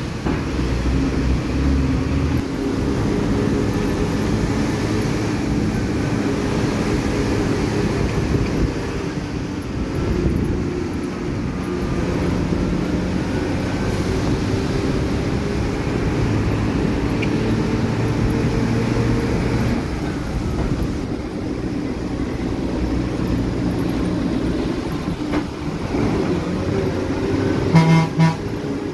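Bus engine running steadily as the bus climbs a winding hill road, heard from a passenger window, its pitch shifting a few times. A horn sounds briefly near the end.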